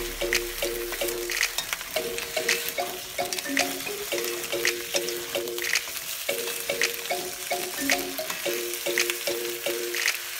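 Potato wedges sizzling in hot oil in a frying pan while being stirred and turned with wooden spatulas, with frequent light clacks of wood against the pan and potatoes. A light background melody repeats a few notes underneath.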